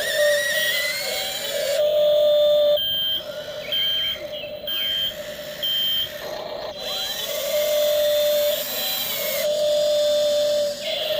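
Electric motors of a radio-controlled model Volvo excavator whining, with steady tones that now and then glide up or down in pitch and start and stop abruptly. About three seconds in, a run of short high beeps comes roughly once a second.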